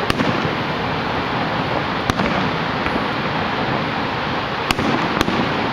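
Aerial fireworks shells bursting: four sharp bangs, the last two close together near the end, over the steady rushing roar of the waterfall.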